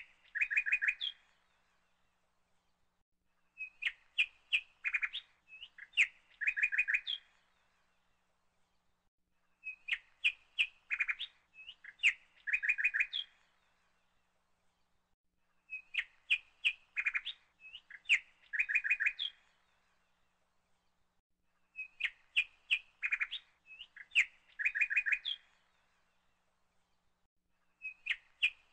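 Looped recording of bird chirping: the same short phrase of quick chirps and clicks repeats about every six seconds, with silence between.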